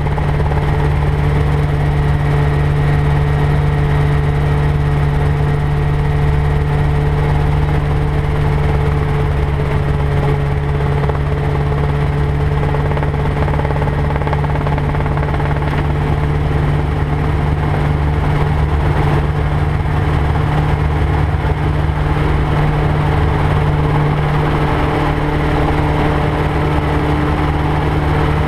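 Rotorway 162F kit helicopter's engine and rotors running steadily on a landing approach, a constant loud drone with a deep steady hum.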